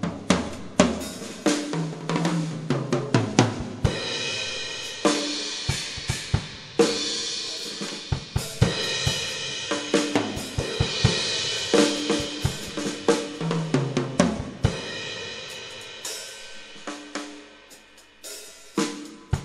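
Drum kit being played: snare, bass drum and hi-hat strikes, with crash cymbals ringing through the middle and tom fills stepping down in pitch around 2 seconds in and again near 14 seconds.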